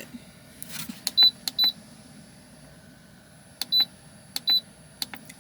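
Portable fridge-freezer's digital control panel beeping at each button press: four short, high beeps, each with a click, as the temperature setting is stepped down.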